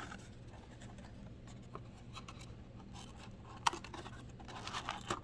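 Hands working at a cardboard trading-card hobby box to open it: faint rubbing and scraping of cardboard, with one sharp tick a little over three and a half seconds in and more rustling near the end.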